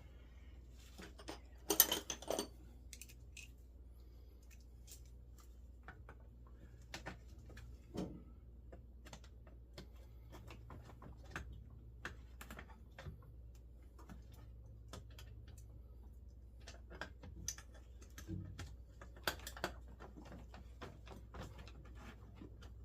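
Irregular light metallic clicks and taps of hand tools and small hardware being worked on a Jeep door handle, about one or two a second, with a louder clatter about two seconds in and again near the end.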